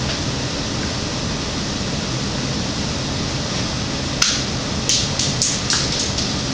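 Steady background hiss, then a sharp click about four seconds in, which is the Lego rubber-band pistol firing. It is followed by a quick run of lighter clicks and taps, which fit the Lego brick round clattering to the floor.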